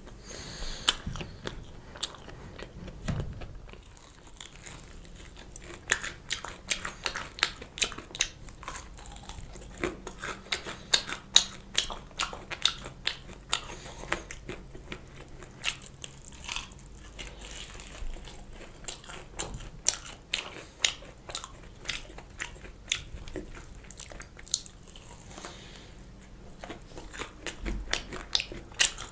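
Close-miked chewing of breadcrumb-coated fried chicken: the crisp crust crackles in rapid crunchy clicks with each chew. The crunching comes in two busy stretches with quieter chewing between them.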